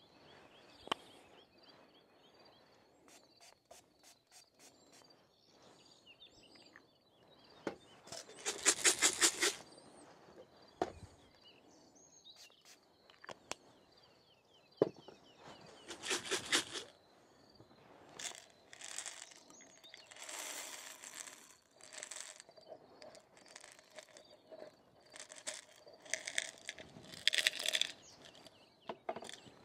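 Camping gear being handled: rustling and crinkling of fabric, with three louder raspy bursts about nine, sixteen and twenty-seven seconds in.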